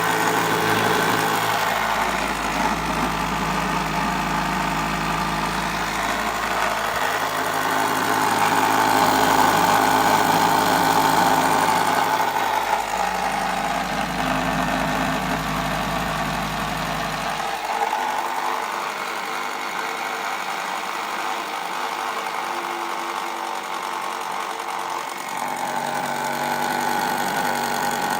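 Clockwork spring motor of a 1930s celluloid wind-up toy speed boat running after its lock screw is released: a continuous mechanical whirring from the wound spring driving the gear train, starting suddenly and keeping on steadily.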